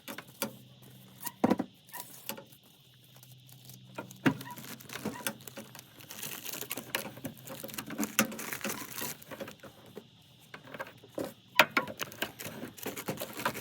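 Irregular taps, clicks and knocks with some rustling, from hand work with tools and equipment, under a faint steady low hum in the first half.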